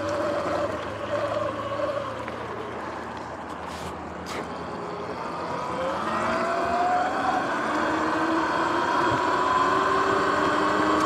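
Sur-Ron X electric dirt bike riding along, its motor whining over tyre and wind noise, the whine rising in pitch in the second half as the bike speeds up. Two brief knocks about four seconds in.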